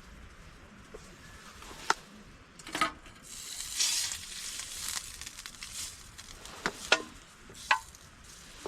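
Objects being handled at close range: a handful of sharp clicks and knocks, with a crinkly rustle like packaging being opened in the middle.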